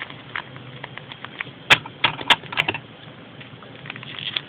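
Plastic packaging being handled and pried open by hand: irregular crackles and clicks, with three sharper snaps in quick succession about two seconds in.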